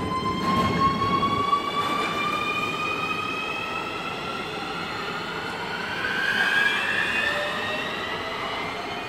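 Nuremberg U-Bahn train pulling out of the station, its electric drive whining in a tone that climbs steadily in pitch as it accelerates away. A low wheel-and-rail rumble is heaviest in the first second or so.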